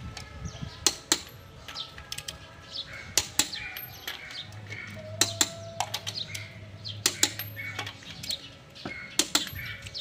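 Steel lug wrench clinking on the wheel nuts as they are tightened: sharp metal clicks, mostly in pairs, every second or two.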